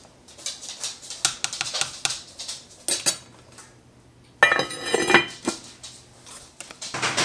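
A spoon scrapes and knocks around the inside of an enameled cast-iron Dutch oven as thick stew is stirred. About four and a half seconds in, the heavy cast-iron lid is set on with a loud, ringing clatter.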